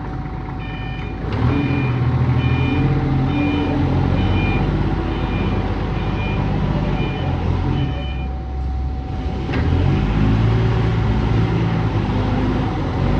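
Heavy equipment engine running and revving, with a reverse alarm beeping about twice a second that stops about eight seconds in. A steady whine sounds throughout.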